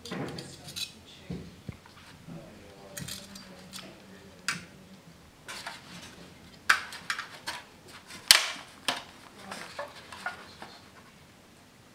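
Aluminium foil and foil pie dishes being handled: scattered light crinkles, clicks and taps as a small foil ring on a wire is bent and pressed into place, the sharpest click a little after eight seconds.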